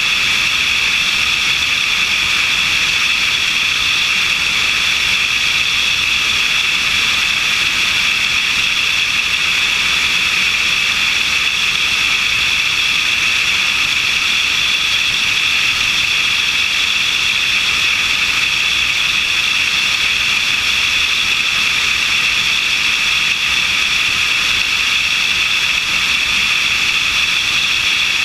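Light aircraft in level flight, heard through a camera on its wing: a steady, loud rush of airflow mixed with the engine and propeller drone, unchanging throughout.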